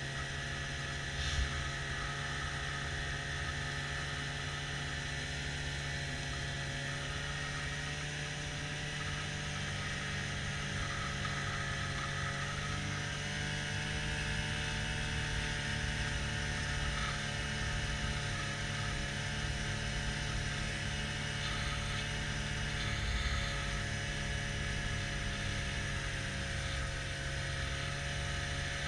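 Snowmobile engine running at a steady trail-riding speed, a steady drone whose pitch drifts slightly up and down, with a short knock about a second in.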